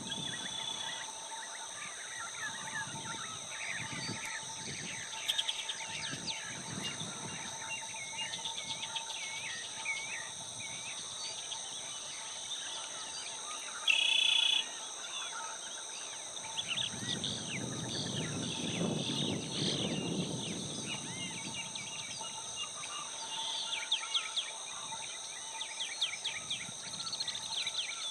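Outdoor ambience of many small birds chirping over a steady high insect drone. About halfway through there is one brief, loud, high-pitched call, and a few seconds later a stretch of low rustling noise.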